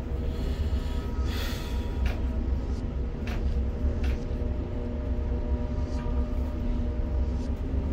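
Container crane machinery running with a steady low rumble and a faint steady hum, while the spreader lowers a flat-rack load; a short hiss and a few light clicks are heard in the first half.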